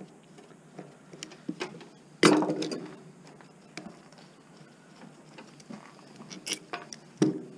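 Hand tools and metal parts being handled while an electric motor is unscrewed and taken apart: scattered small clicks and taps, with a loud metallic clank that rings briefly about two seconds in and another sharp knock near the end.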